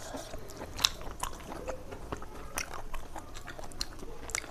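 Close-up chewing and biting of food, with irregular small crunchy clicks.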